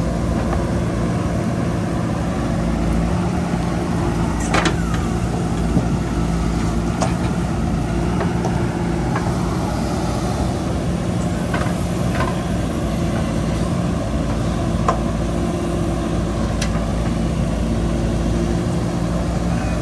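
Diesel engine of a JCB 3DX backhoe loader running steadily under load as the backhoe arm digs and swings a bucket of soil, with a few sharp knocks scattered through.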